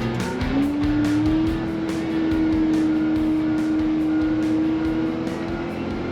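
Wheel loader engine running under load, its pitch rising about half a second in and then holding steady, with scattered knocks and rattles.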